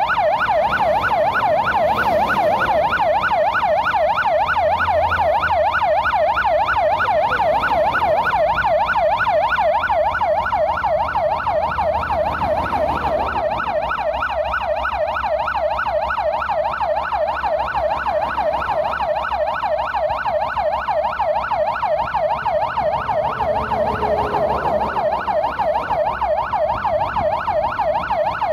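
Emergency vehicle siren sounding continuously in a fast yelp, its pitch sweeping up and down several times a second, with a faint low rumble of engines underneath.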